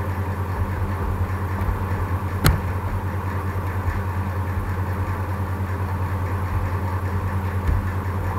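A steady low hum, fairly loud and unchanging. A single sharp click comes about two and a half seconds in.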